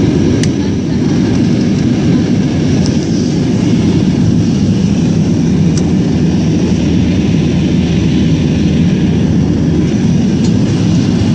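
Steady low rumble of a jet airliner's engines and airflow, heard from inside the passenger cabin, with a few faint ticks.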